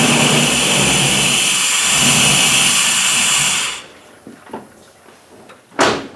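1998 Chevy pickup engine running with its mass airflow sensor removed, then dying about four seconds in: without the sensor it runs but shuts off for want of the sensor's signal. A sharp knock near the end.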